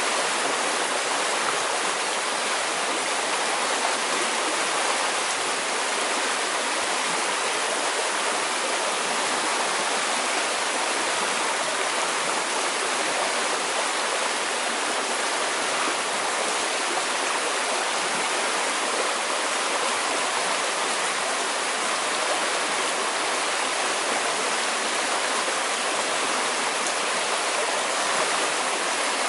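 Fast-flowing river rushing over rocks: a steady, even roar of water.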